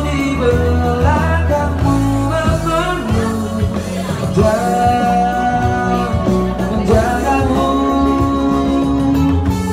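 A man singing live into a microphone with a band behind him: guitar chords and a steady low bass line under a sung melody with long held notes.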